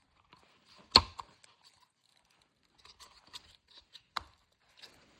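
Hard plastic speaker spacer, cut from a factory speaker frame, being pressed into a car door's speaker opening: one sharp knock about a second in, then light plastic clicks and scraping, and another click near the end as it squeezes in tight.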